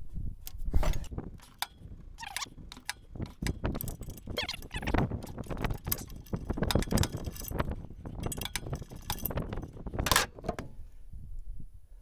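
Hand tools on metal: irregular clinks, knocks and scraping as a wrench and socket work the old oxygen sensor loose from the exhaust. The clatter stops shortly before the end.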